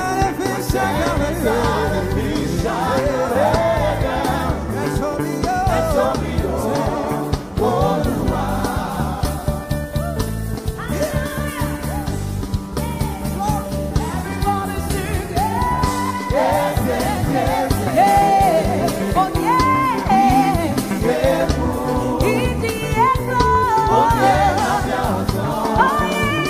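Upbeat gospel praise music: voices singing over a steady beat.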